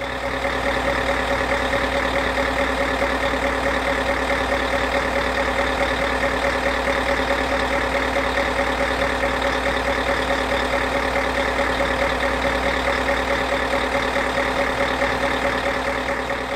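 A large engine running steadily at a constant speed, with a low hum and several fixed tones above it. It fades in at the start and fades out near the end.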